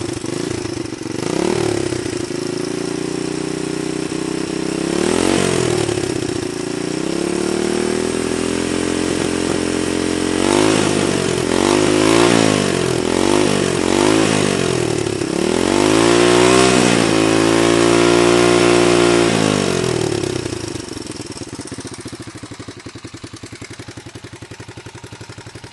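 Honda XLS 125 single-cylinder four-stroke engine idling and being revved by hand. First come a couple of single blips, then a held rev, a run of quick blips, and a longer held rev, before it drops back to a steady idle for the last few seconds.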